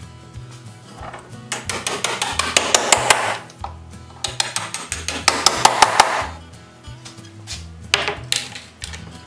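Hammer tapping on wood inside a pine chuck box: two runs of quick strikes, each a second or two long, and a few more near the end, over background music.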